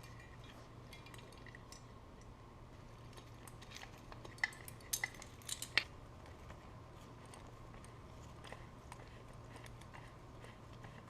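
A few short, light clicks and clinks of small parts being handled, clustered near the middle, over a faint steady low hum.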